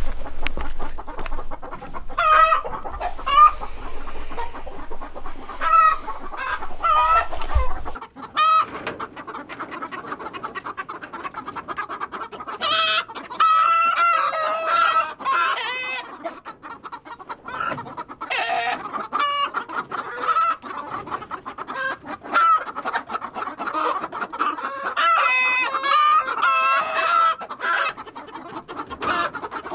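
A flock of chickens clucking, with many short calls overlapping throughout. These are hens settling in on their roosts for the night.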